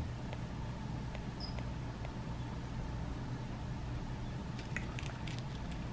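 Light clicks and clinks of a metal pellet tin and lead .177 airgun pellets being handled, with a quick cluster of clicks about five seconds in, over a steady low hum. A brief high pip sounds twice.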